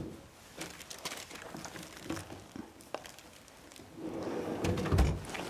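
Faint clicks and small knocks of a metal toolbox add-on being handled and turned around, with a duller thump near the end.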